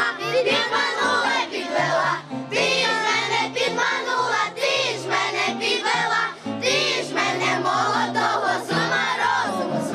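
A group of children singing a song together in unison, with steady low accompanying notes underneath.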